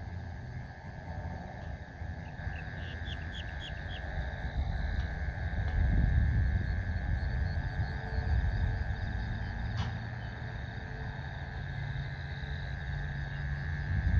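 Evening outdoor ambience: a steady, high-pitched insect drone under a low, uneven rumble of wind on the microphone. A quick run of about five faint chirps comes a few seconds in.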